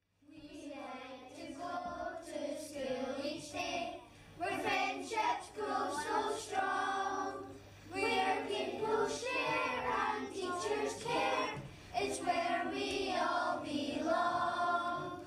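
A group of children singing together in phrases of about four seconds, with held notes, over a faint steady low hum; the singing cuts off suddenly at the end.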